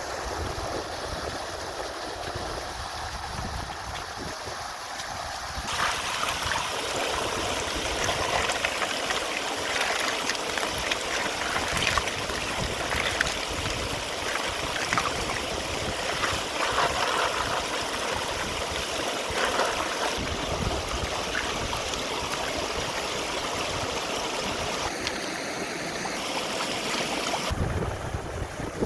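Steady rush of running water, like a stream, trickling and gurgling. It gets louder and brighter abruptly about six seconds in and drops back abruptly near the end.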